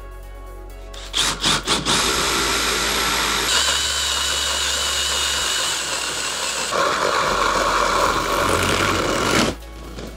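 A handheld power tool working wood: a few short trigger blips, then about eight seconds of steady running that changes pitch twice as the load shifts, before it stops abruptly near the end.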